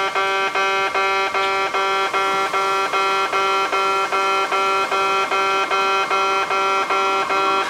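Kintetsu station-premises level crossing alarm sounding its buzzing electronic 'bee-bee-bee' warning tone instead of the usual clanging bell, repeating about twice a second.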